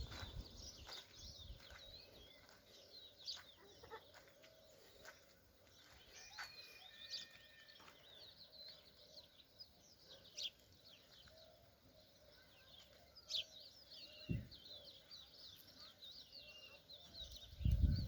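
Faint chirping of many small birds, short high calls scattered throughout, with a single dull thump about fourteen seconds in.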